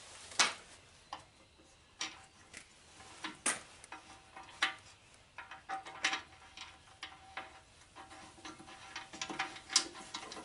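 Irregular metallic clicks, taps and clinks of hand tools and metal parts being handled and fitted, some leaving a brief faint ring; the loudest knocks come about half a second in and near the end.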